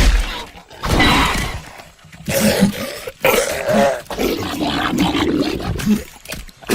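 Designed Parasaurolophus creature vocalizations: a string of harsh roaring calls, each about a second long, with pulsing grunts in a longer call through the middle.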